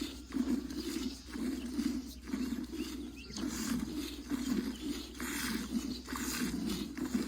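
Cow being milked by hand: a steady rhythm of squirts of milk into a pail, about two strokes a second.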